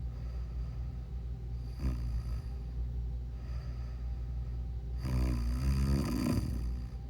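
A sleeping person snoring: a short snore about two seconds in, then a longer, louder snore near the end with a rough tone that dips and rises in pitch. A steady low hum runs underneath.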